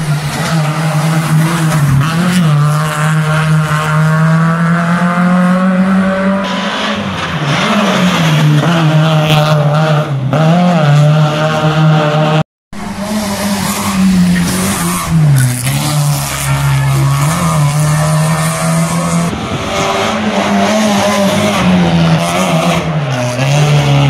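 Rally car engine running loud at high revs, its pitch repeatedly dropping and climbing back every few seconds. The sound breaks off for an instant about halfway through, then carries on the same way.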